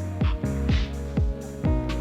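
Background electronic music with a steady beat: a deep kick drum about twice a second under sustained chords and short snare hits.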